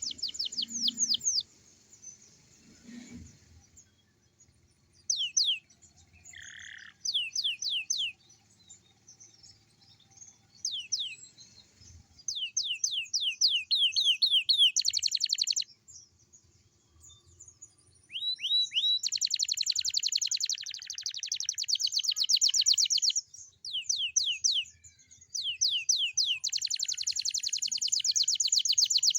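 Young domestic canary singing in phrases of fast trills: rows of quick, high, downward-sweeping notes repeated many times, separated by short pauses. A couple of faint low thumps come in the first few seconds.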